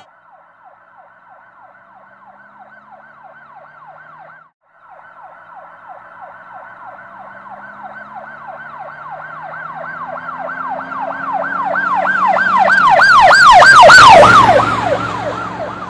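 Emergency vehicle siren in rapid yelp mode, about three up-and-down sweeps a second. It drops out briefly about four and a half seconds in, then grows steadily louder as the vehicle approaches, is loudest about 14 seconds in as it passes, and fades after.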